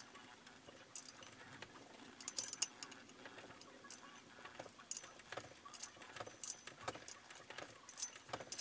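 Light, irregular metallic clicks and clinks of a socket and ratchet working the ARP flywheel bolts into an ACT lightweight flywheel, some clicks with a brief high ring.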